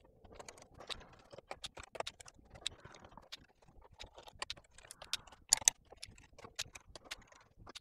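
Acer Nitro laptop's plastic case being handled on a work mat and a screwdriver set to its bottom-cover screws: irregular small clicks and taps, with two sharper clicks about five and a half seconds in.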